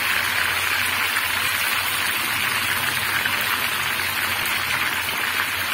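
Hot oil sizzling steadily as marinated, batter-coated meat pieces (boti) deep-fry in a pan.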